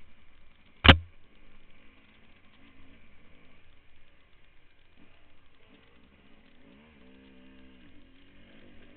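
Off-road motorcycle engine heard muffled through a helmet-mounted camera, running as the rider works the throttle, its pitch rising and falling back about seven seconds in. A single sharp knock about a second in.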